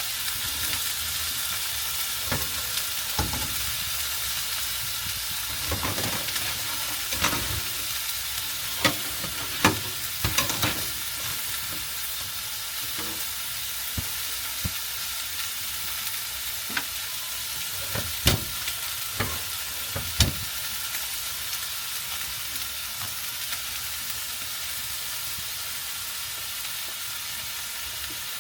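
Fillet steak sizzling steadily in a frying pan. Occasional sharp knocks and clicks stand out, mostly in the first ten seconds, with a few more later.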